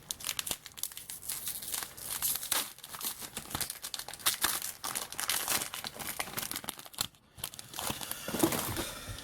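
Trading card pack wrapper being crinkled and torn open by hand: an irregular run of crackles and rips, with a brief pause a little after the middle.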